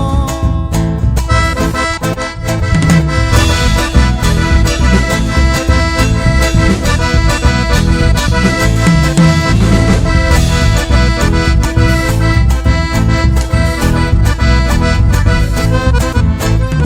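Instrumental chamamé: an accordion leads with sustained chords over a steady rhythmic bass and guitar accompaniment.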